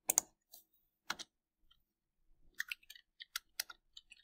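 Computer keyboard keystrokes and mouse clicks. A few scattered clicks come first, then a quicker run of taps in the last second and a half.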